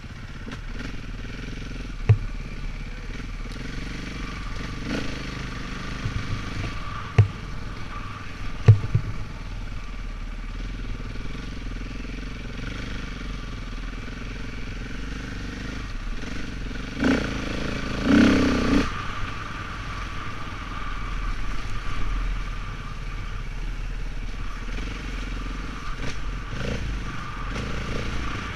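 Off-road vehicle engine running steadily while riding a rough dirt trail. A few sharp knocks and rattles come from bumps in the first ten seconds, and a brief louder burst about two-thirds of the way through.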